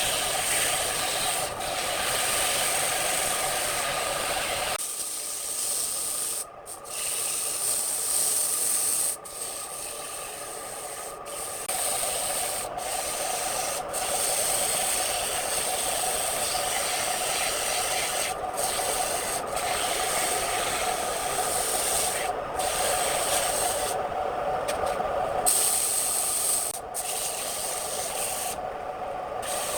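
Wood lathe running with the turner working the spinning wood: a steady rubbing hiss of tool or abrasive against the turning workpiece, briefly broken several times as the contact is lifted.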